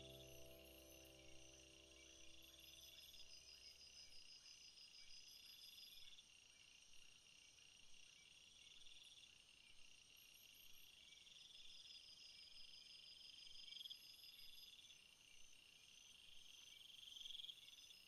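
Faint, high insect-like chirping: steady thin tones with a pulsing trill that swells and repeats every few seconds. A soft music tail fades out about four seconds in.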